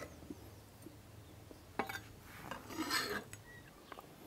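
Chef's knife scraping chopped shallots across a wooden cutting board into a stainless steel saucepan, with light clinks of the blade on the pan and a scraping rustle about three seconds in.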